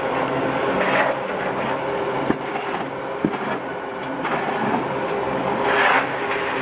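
Roller-type charcoal and coal ball press running, with the steady mechanical drone of its drive. Two sharp knocks come about two and three seconds in, and louder rushing swells come about a second in and near the end.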